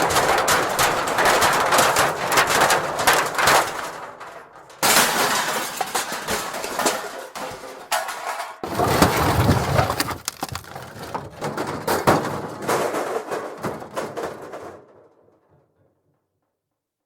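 Thin metal junk debris being shaken and moved, a dense rattling and clanking with scraping. It comes in three bursts, each starting abruptly, with the last dying away about fifteen seconds in, followed by silence.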